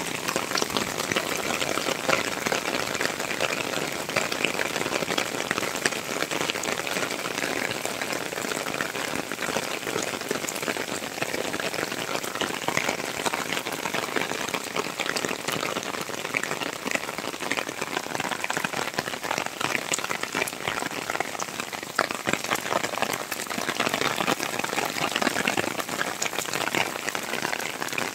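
Heavy rain falling on wet concrete paving: a steady, dense patter of countless drops hitting the surface.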